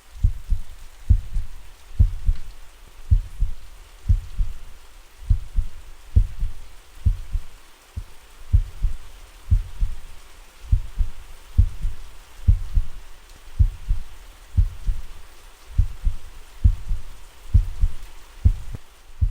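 Heartbeat with slow, steady lub-dub double beats about once a second, over a soft, steady patter of rain.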